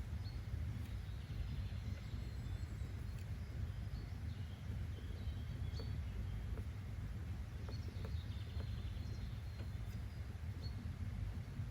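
Steady low rumble of outdoor background ambience, with faint high bird chirps now and then.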